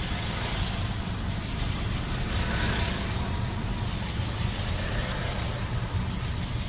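Steady road-vehicle noise heard from inside a car: a low engine and road rumble with an even hiss over it.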